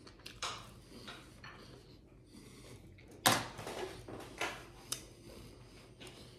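Eating noises at a table: chewing, with scattered clicks and knocks of utensils. The loudest is a single sharp knock about three seconds in.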